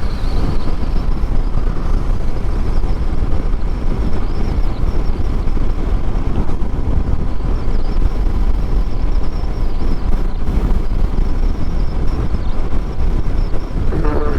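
Steady wind rush and road noise from riding a Yamaha MT-07 motorcycle at speed, with the wind buffeting the microphone and loudest in the deep low end.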